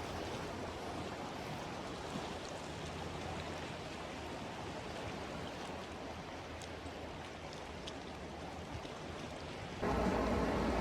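Steady rushing wash of water, small waves on the shore. About a second before the end, a louder, low, steady humming sound cuts in over it.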